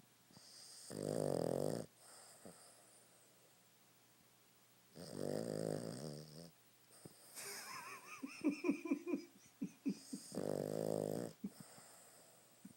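A sleeping pet snoring: three long snores a few seconds apart. Between the second and third comes a stretch of quick, irregular fluttering sounds.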